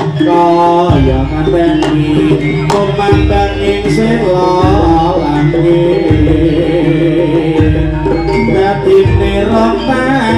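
Live Jaranan gamelan music: hand-drum (kendang) patterns and a melodic line over a deep, gong-like stroke about every second and a half.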